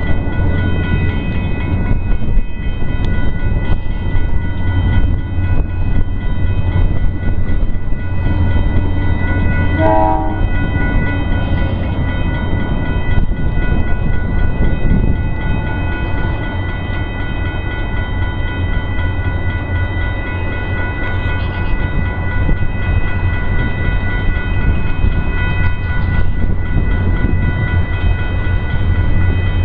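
Distant freight train approaching down the line: a steady low rumble under a constant ringing chord of several high tones, with a short falling run of notes about ten seconds in.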